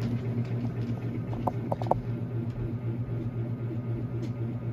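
Antique Emerson Fern Leaf ceiling fan running at its single speed: a steady motor hum with a rhythmic pulsing wobble, because its warped blades are off balance. A few short ticks about one and a half seconds in.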